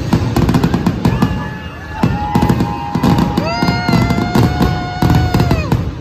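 Dense barrage of aerial fireworks, with rapid overlapping bangs and crackles. Music with held notes plays under it and grows stronger from about two seconds in.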